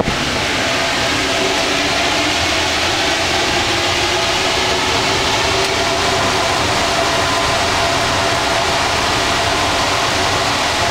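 Rubber-tyred Paris Métro Line 1 train running at steady speed through a tunnel, heard from the driver's cab: a continuous rumble and rush of running noise with a faint steady whine.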